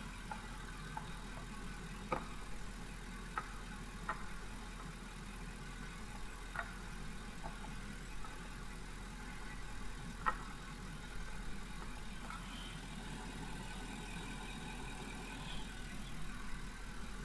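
Ford F-150 pickup engine idling steadily, with a few sharp clicks now and then as the headlight's aiming screw is turned with a kitchen knife.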